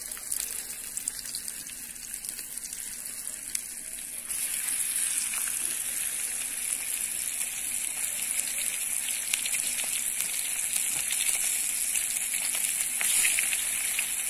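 Flour-coated fish pieces frying in hot oil in a frying pan over a wood fire: a steady, high sizzle with fine crackling. The sizzle gets louder about four seconds in as more fish goes into the oil.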